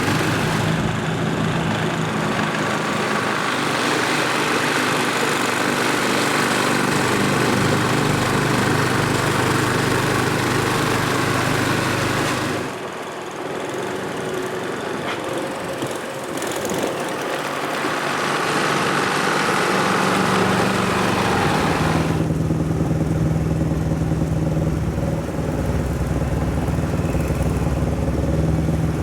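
Ariens snowblower's small gas engine running steadily. It eases off and changes note for several seconds about halfway through. Near the last quarter the higher rushing noise falls away, leaving a steadier engine hum.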